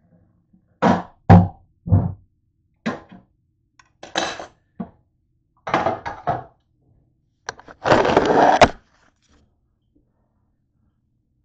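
Metal sheet pan and kitchenware knocked and set down on a counter: a string of sharp clanks and knocks, then a longer clattering rattle of almost a second near the end.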